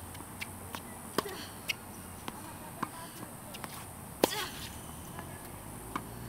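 Tennis balls being struck with rackets and bouncing on an outdoor hard court: a string of sharp pops roughly every half second, the loudest about four seconds in.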